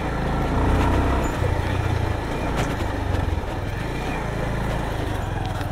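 Motorcycle engine running at low revs, rising slightly about a second in and then settling back.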